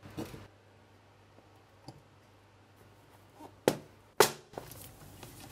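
Hand-operated eyelet press setting a metal eyelet in a leather strap: a short crunch as the punch presses down, then two sharp knocks about half a second apart near the end as the strap is taken off the die.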